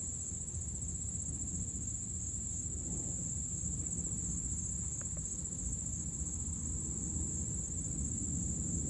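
A steady high-pitched trill, like a cricket chirping without pause, over a low rumble, with a couple of faint clicks.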